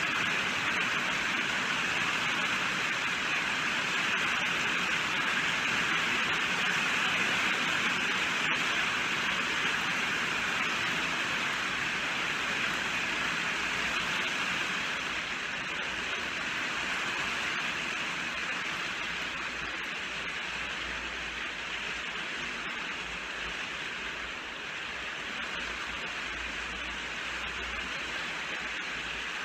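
Rain falling steadily, a dense even hiss that softens slightly about halfway through.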